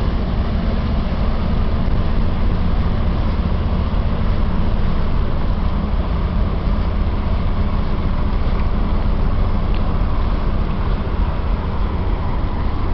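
Steady low rumble of wind buffeting the camera's microphone, with a hiss over it and no changes.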